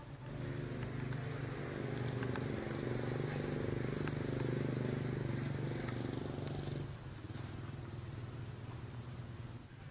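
A motor engine running steadily with a low drone, louder for the first seven seconds or so and then dropping away to a quieter hum.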